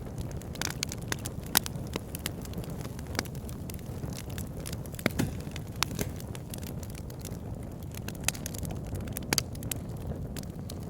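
Fireplace fire crackling: a steady low rumble of flames with irregular sharp pops and snaps, a few louder pops about five, six and nine seconds in.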